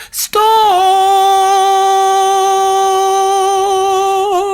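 A woman singing without accompaniment holds the song's final word, 'storm', as one long steady note that wavers slightly near the end.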